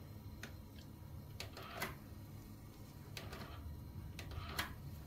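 About half a dozen sharp, scattered clicks and clacks over a low steady hum, as a cassette tape is handled and loaded into the cassette deck of a Kenwood SH3 mini hi-fi system.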